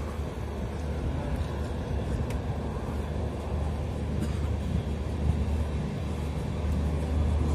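Indian Railways express train running at speed, heard from inside the coach: a steady low rumble of wheels on rail with a few faint clicks.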